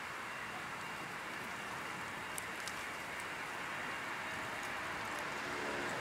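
Jet engines of a twin-engine wide-body airliner at takeoff thrust: a steady rushing roar as the aircraft rotates and lifts off, growing slightly louder near the end as it climbs toward the listener.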